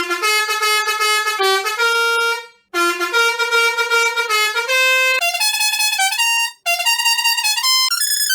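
Brassy, trumpet-like musical bus horn playing a stepping melody of short held notes, in three phrases with brief breaks about two and a half and six and a half seconds in.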